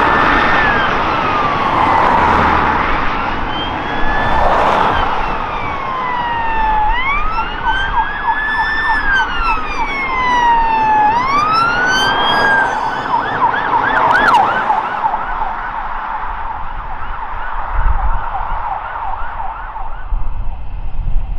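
Police car sirens wailing in slow rising and falling sweeps as the cars pass. About two-thirds of the way through they switch briefly to a fast yelp, then fade away.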